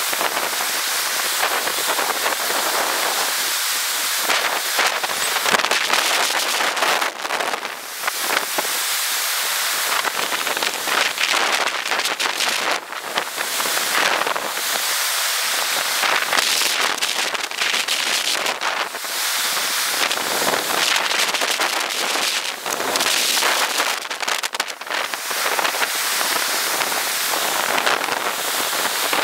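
Ocean surf washing onto a flat beach: a steady, crackling hiss of water that dips briefly every few seconds.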